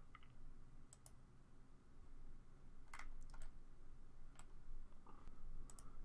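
Faint computer mouse clicks: a handful of short, separate clicks, some in quick pairs, over a low steady hum.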